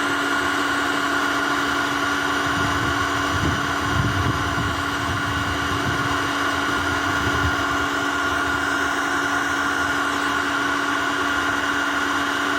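Handheld induction heater running with a steady hum and a fixed high whine, heating a rusted exhaust-manifold bolt.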